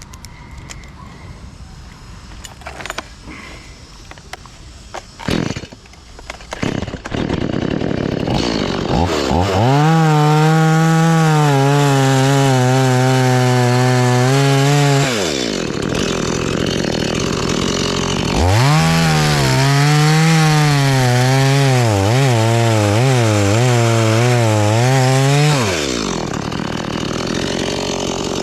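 Two-stroke chainsaw revved to full throttle and cutting into a coconut palm trunk twice, each cut lasting about six or seven seconds, with the engine dropping back to idle between and after. On the second cut the engine pitch wavers as the chain bites and bogs in the wood. A few sharp knocks sound in the quieter opening seconds.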